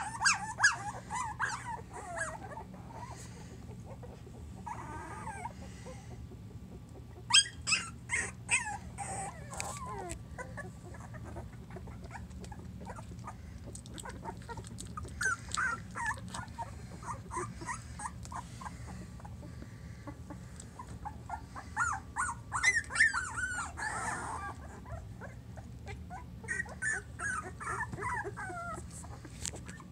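Newborn Small Münsterländer puppies, 12 days old, squeaking and whimpering in short clusters of high, wavering squeals, with quieter stretches between.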